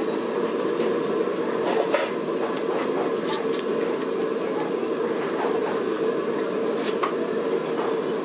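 A steady mechanical drone that holds an even level, with a few light clicks or taps on top of it.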